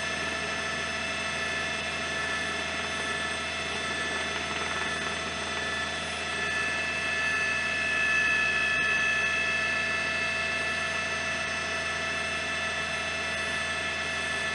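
Helicopter running steadily, heard from on board: a constant drone with a whine of several high, unchanging pitches, a little louder about halfway through.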